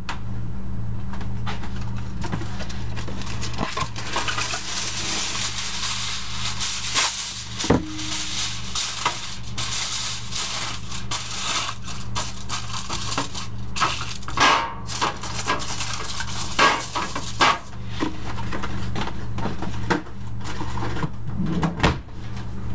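Aluminium foil being pulled off the roll, torn and crinkled as it is pressed into a baking pan, with a few knocks of the pan. A steady low electrical hum runs underneath.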